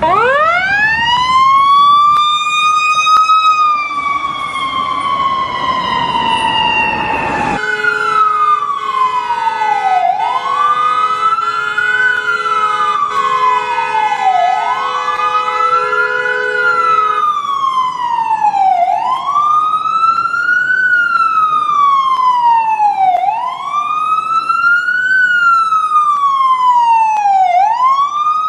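American ambulance siren. It winds up over about two seconds and holds high, then slowly falls. After a cut it changes to a wail that rises and falls about every four seconds. For the first ten seconds of the wail a steady lower tone sounds under it.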